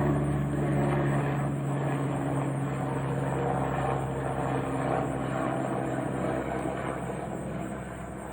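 Airbus EC145 helicopter running with a steady hum that slowly fades over several seconds as it moves away.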